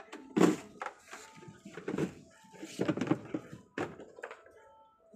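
Hollow knocks and clatters of white plastic cabinet panels being handled, bumped together and set down, a string of irregular bumps with the loudest about half a second in.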